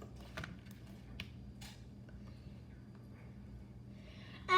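Slime being squished in the hands, making a few small clicks and pops in the first couple of seconds, then going quieter.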